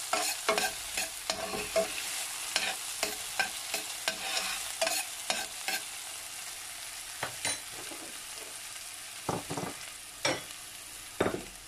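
Chopped onion sizzling in hot oil in a stainless steel pot, stirred with a metal spoon that clicks and scrapes against the pot. The stirring strokes come thick at first and thin out to a few separate strokes toward the end.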